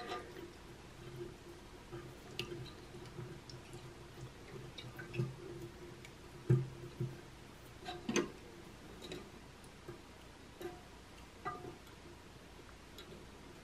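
Quiet small clicks and light knocks of a metal flapper chain being unhooked and re-hooked on a toilet's flush lever arm inside the tank, with a little dripping water as hands move in the tank water; the sharpest knocks come about six and a half and eight seconds in.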